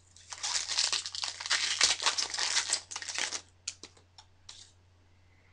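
Foil wrapper of a baseball card pack crinkling as it is torn open and the cards are pulled out, for about three and a half seconds, followed by a few short clicks as the cards are handled.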